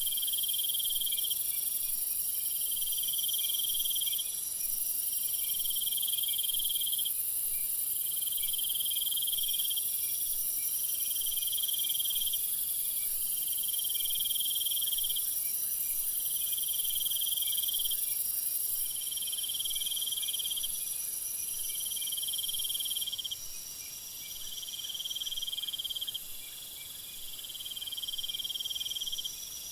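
Meadow insects trilling in a regular rhythm, one high trill lasting about a second repeating roughly every two seconds, over a constant high hiss that gets quieter about two-thirds of the way through.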